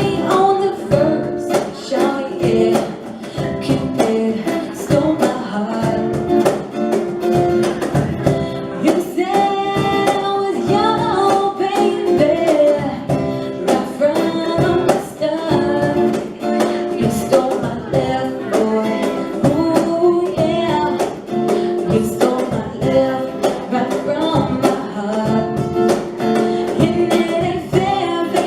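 Live reggae song with singing over guitar and a steady beat.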